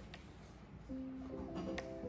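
Background music, a melody of separate held notes coming in about a second in, over faint clicks.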